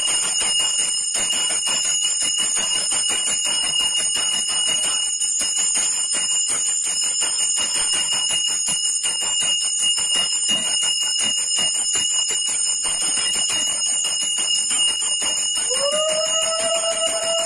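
Brass puja hand bell rung rapidly and without pause, a dense jangle of strikes over its steady high ringing tones. Near the end a long, steady lower note joins in.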